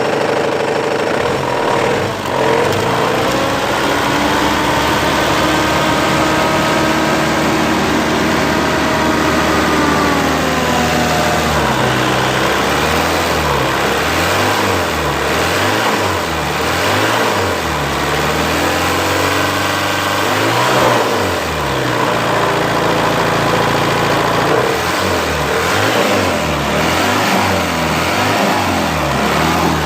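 Mitsubishi 4D56 four-cylinder diesel engine running with a knock, its speed rising and falling back a couple of times. The knock appeared suddenly overnight with no earlier signs; the owner places it around cylinder 4.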